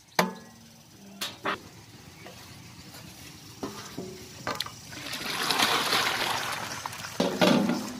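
Aluminium cooking pots knocking and clanking as they are handled, then a heap of raw potato slices tipped from one pot into a large aluminium pot of water, splashing for about two seconds. A loud clank follows near the end.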